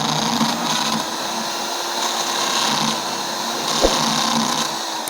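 Electric drill running steadily with a step cone drill bit cutting a hole through a plastic sheet, with a light click about four seconds in. The motor starts to wind down right at the end.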